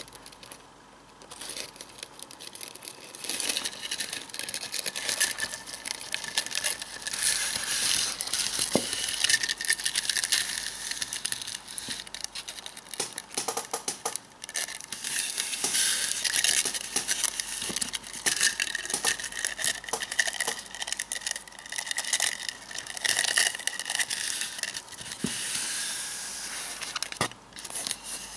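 Two eastern Hercules beetles grappling: continuous scratchy crackling as their clawed legs and horns scrape on foam and on each other's shells, with many small clicks. It is quiet at first and picks up about two seconds in.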